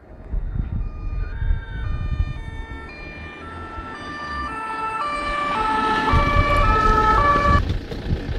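Two-tone emergency vehicle siren alternating between two notes about twice a second, faint at first and growing steadily louder before cutting off near the end. Low rumbling noise runs underneath.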